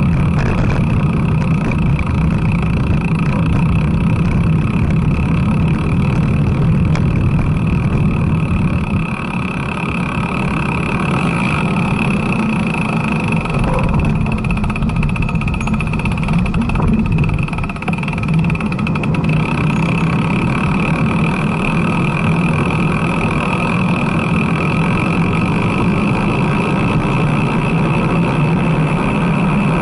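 Steady rush of wind and road rumble from riding a road bicycle, picked up by a chest-mounted camera's microphone, easing briefly twice.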